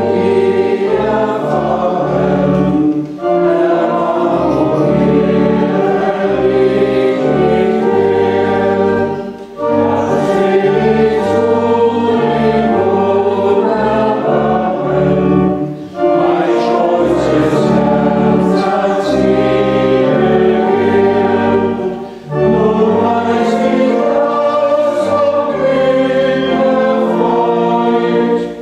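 A hymn sung by a choir of many voices over a sustained low bass accompaniment. It moves in phrases of about six seconds, each followed by a brief pause for breath.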